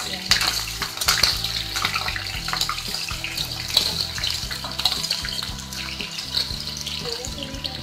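Hot oil in a kadhai sizzling and crackling as boiled potato chunks slide in with chopped green chillies. The crackle is busiest in the first second or so, then settles into a steady sizzle.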